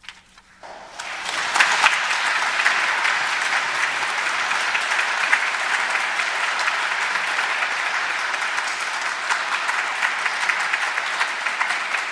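Congregation applauding: the clapping starts about a second in, builds quickly and then holds steady.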